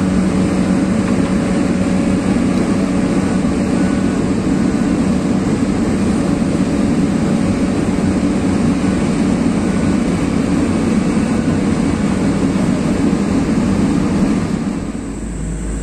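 Heavy diesel engine of an amphibious excavator running steadily and loudly, easing off slightly about a second before the end.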